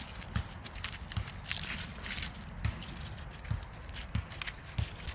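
Footsteps walking at a steady pace, about one step every three-quarters of a second, with light metal jingling in between, typical of the leash and collar hardware on a dog walk.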